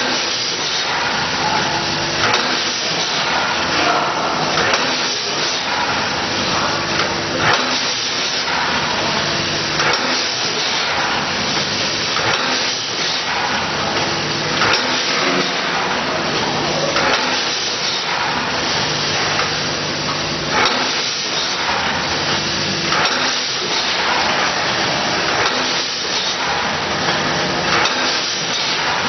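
Vertical bagging machine with a multihead weigher running: steady mechanical noise with hissing and repeated knocks every second or two as the bags are filled and dropped.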